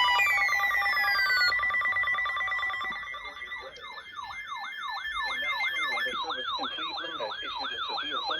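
Electronic siren. Early on a falling tone winds down over a steady buzzy tone. From about three and a half seconds in it changes to a rapid yelp, the pitch sweeping up and down about two to three times a second.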